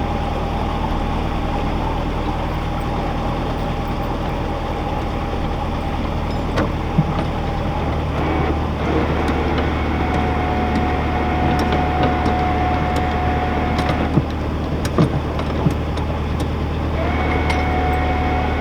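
Narrowboat diesel engine running steadily at tickover, with a thin steady whine that comes in about halfway through, drops out, then returns near the end, and a few sharp clicks.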